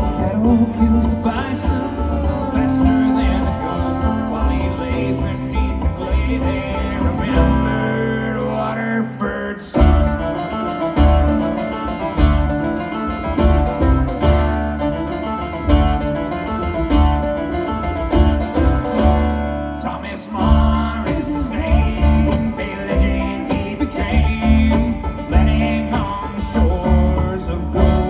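Live bluegrass band playing: banjo, acoustic guitar, mandolin and upright bass over a steady driving beat, with brief breaks about a third and two thirds of the way through.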